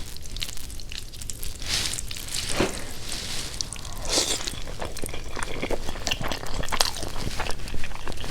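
Close-up biting, crunching and chewing of crispy fried chicken: irregular crackles and mouth clicks, with a few louder crunches.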